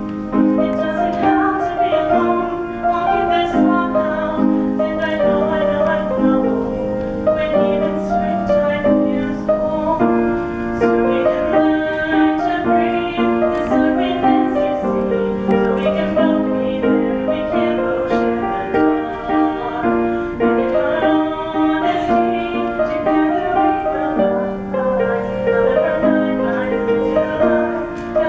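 A girl singing a song while accompanying herself on piano, with steady chords throughout.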